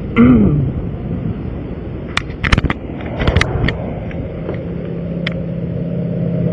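Steady hum of vehicle engines and traffic beside the road, with a cluster of sharp clicks and knocks about two to three and a half seconds in.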